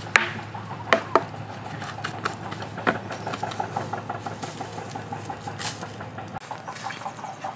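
A few sharp knocks of wood as firewood and a board are dropped and handled at a campfire. Under them runs a fast, even puttering like a small distant motor, and a low hum that cuts off suddenly near the end.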